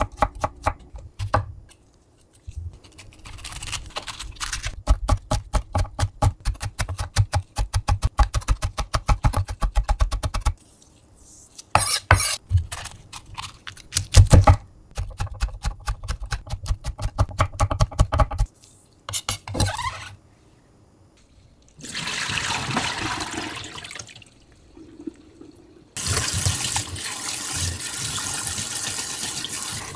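Knife chopping rapidly on a wooden cutting board, slicing onion and then red chili pepper in quick, even strokes with short pauses. In the last several seconds, tap water runs and splashes over perilla leaves in a steel bowl in the sink.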